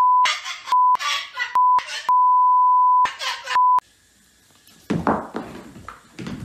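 Censor beeps, a steady single tone sounded five times, the longest about a second, bleeping out a cockatoo's squawked curses, with its harsh calls heard between the beeps. Then about a second of near silence, then knocks and rustling.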